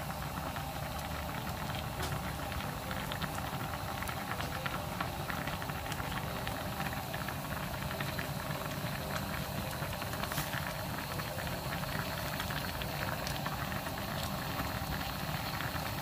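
A pot of doenjang soup with wild chive and mugwort boiling hard: a steady hiss with many small bubbling pops.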